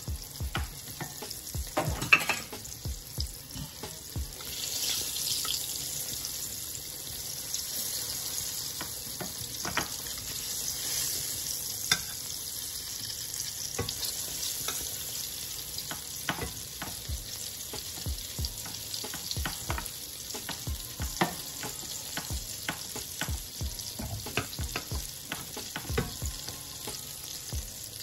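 Flour-dredged fish fillets frying in hot oil in a stainless steel skillet, a steady sizzle and crackle that grows brighter and louder about five seconds in. Scattered sharp taps sound through it.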